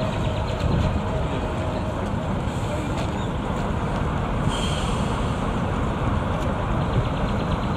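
Diesel engine of a MÁV Class M44 switcher locomotive, number 449 024, running with a steady low rumble close by.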